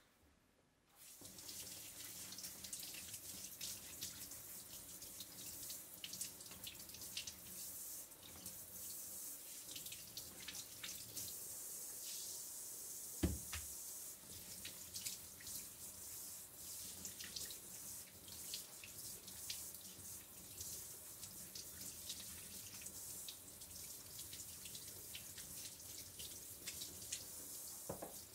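Kitchen tap running into a stainless steel sink, with the stream splashing over a Japanese sweet potato as it is scrubbed by hand to wash off mud. The water comes on about a second in, and there is a single knock about halfway through.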